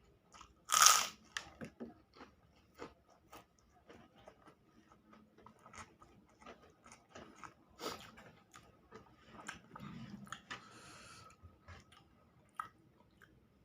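Close-miked chewing of balado eggs: wet smacks and small clicks. There is one much louder, sharp noise about a second in and a short hiss near the end.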